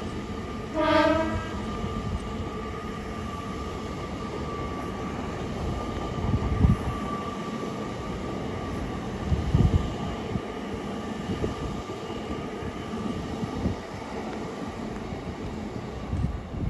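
LNER Azuma (Hitachi Class 800) train passing through the station: one short horn blast about a second in, then a steady rumble with a constant whine, with a couple of heavier thumps partway through.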